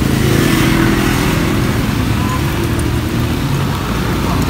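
Motor vehicle engine running steadily close by, a low hum with road traffic noise around it.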